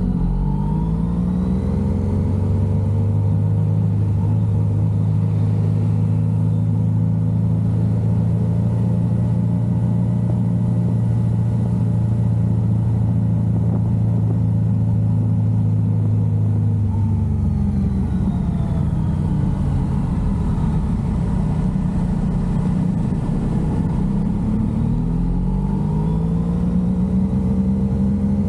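Yamaha XSR900 motorcycle's inline three-cylinder engine on the move. It pulls up through the revs at the start and holds a steady cruise for about fourteen seconds. The pitch then drops as the throttle is rolled off, and it rises again near the end under acceleration.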